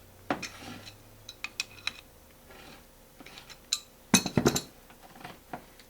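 Small metal clicks and clinks of a zinc die-cast cable connector and its compression nut being handled and tightened onto jacketed MC cable, with a louder clatter of knocks about four seconds in.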